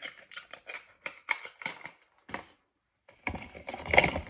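Handling noise from a small cardboard product box: a run of quick taps and crinkles, then a denser, louder rustle ending in a sharp knock near the end.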